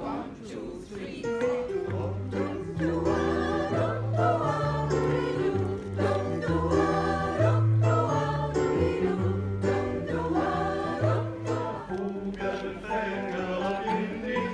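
A mixed group of amateur singers singing a song together, accompanied by an electric keyboard playing held chords over a moving bass line. The music comes in fully about a second and a half in.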